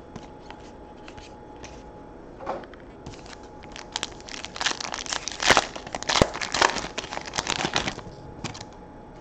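Foil wrapper of a trading card pack crinkling and tearing as it is opened by hand: a few light rustles, then a dense run of sharp crackles from about three seconds in, loudest near the middle, easing off just before the end.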